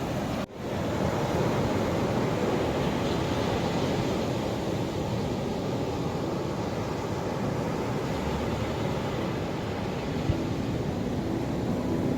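Ocean surf washing in, a steady rush of waves. The sound cuts out for an instant about half a second in.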